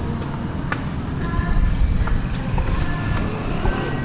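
Street ambience while walking: footsteps that click irregularly over a strong, steady low rumble, with faint brief sounds of distant voices or other street noise.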